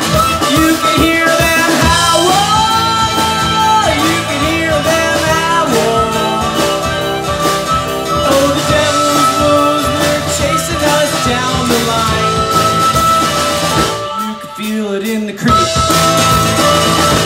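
Live blues-rock band playing: bass guitar, drum kit and strummed acoustic guitar, with a harmonica carrying the held, bending melody. About fourteen seconds in, the bass and drums drop out for a moment, then come back in.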